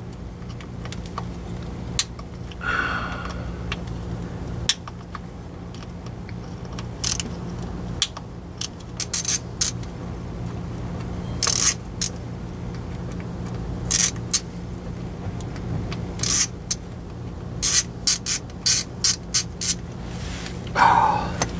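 Hand ratchet clicking in short runs, several times and more often toward the end, as bolts are loosened on the valve body of a Jeep 44RE automatic transmission to take out the 3-4 accumulator. A steady low hum lies underneath.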